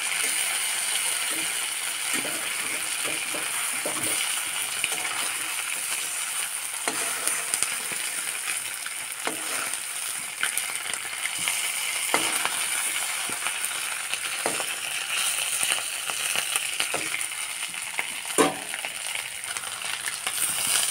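Boiled eggs sizzling in hot oil in a steel kadhai: a steady frying hiss. Every second or two a steel spatula scrapes and taps the pan as the eggs are turned.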